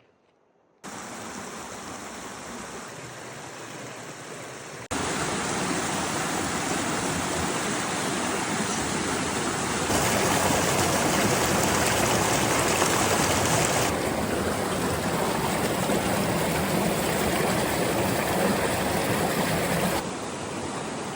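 Mountain creek flowing, a steady rush of water that starts after a second of near silence and jumps abruptly louder or softer several times, as if cut between different recordings.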